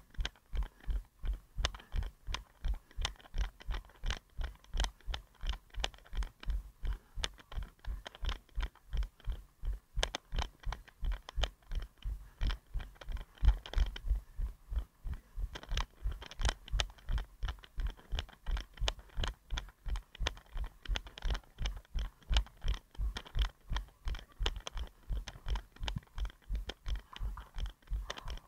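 A runner's footfalls jolting a head-mounted action camera: an even rhythm of about three steps a second, each a low thump with a sharp click.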